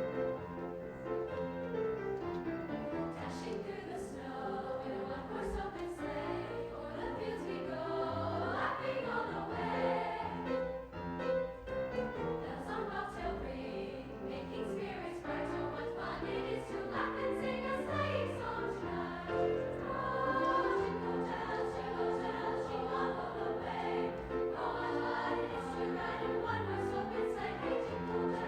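High school choir singing, many voices holding and moving between sustained notes together.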